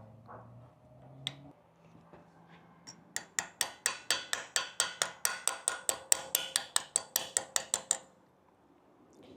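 Rapid light hammer taps on metal, about six a second for some five seconds starting about three seconds in, each with a short ring. The hammer is marking a hole location on a machined aluminum axle cap.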